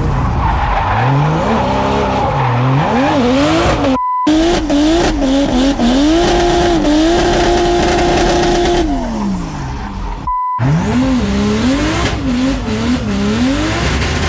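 Race car engine revving up and down hard while drifting, with tyre squeal, in three separate takes broken by short gaps, each gap just after a brief beep. In the middle take the engine holds one steady high note for a few seconds, then falls away.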